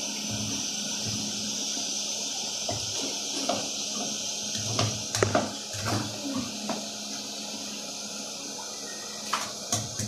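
Steady hiss of a gas burner flame heating oil in a pot, with a few light knocks and clicks from handling around the middle and near the end.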